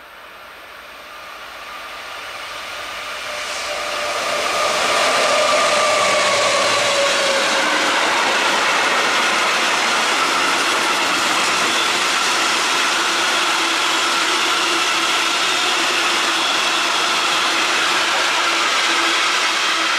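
A Class 66/77 diesel freight locomotive, with its EMD two-stroke engine, approaches and grows steadily louder. Its pitch drops as it passes, about five to eight seconds in. A long train of freight wagons then rolls past steadily and loudly.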